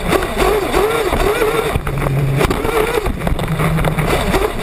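Small engine of a 1/8-scale off-road RC buggy, heard from on board, revving up and falling back again and again as the throttle is worked through the track's corners. Under it runs a rough rush of tyres on dirt and wind.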